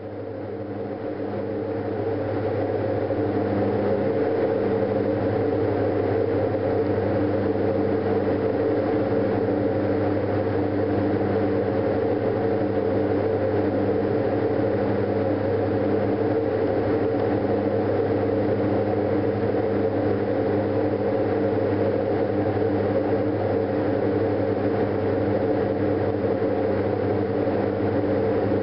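Diamond DA42 Twinstar's twin engines and propellers droning steadily in cruise, heard from inside the cabin. The sound fades up over the first few seconds, then holds even.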